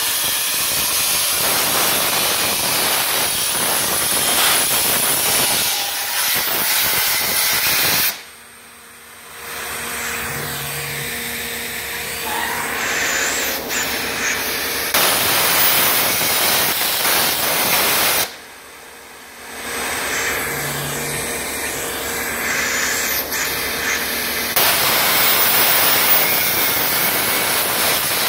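CNC plasma cutter torch cutting steel plate with a loud, steady hiss. The hiss drops away twice, about 8 and 18 seconds in, leaving a quieter machine hum with faint steady tones for a second or two, then builds back up.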